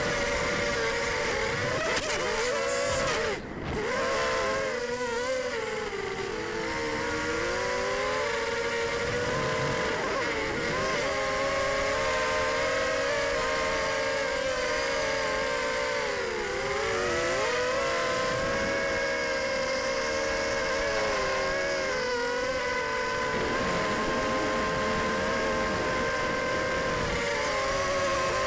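Racing quadcopter's four DYS 1806 2300KV brushless motors spinning 5030 props on a 3S battery, heard close from the onboard camera: a steady whine whose pitch dips and climbs again and again with the throttle. About three and a half seconds in, the whine cuts off briefly as the throttle is chopped, then comes back.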